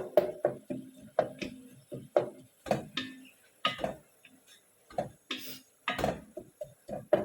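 Kitchen utensils knocking against cookware: a run of irregular sharp clacks, about three a second, each with a brief ring, some louder than others.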